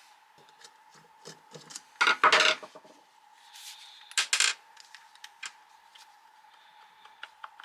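Hands working on a dismantled cordless angle grinder: light clicks, scrapes and clinks of its metal and plastic parts, with two louder clattering bursts about two and four seconds in.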